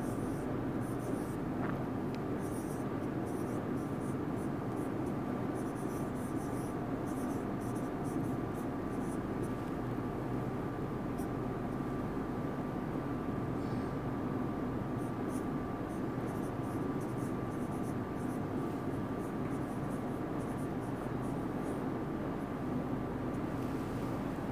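Marker pen writing on a whiteboard: short scratchy strokes in two runs with a pause in the middle, over a steady background hum.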